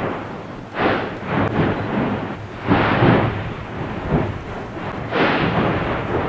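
Nyamulagira volcano erupting: a continuous low rumble with four strong surges of rushing, blasting noise, about one to two seconds apart.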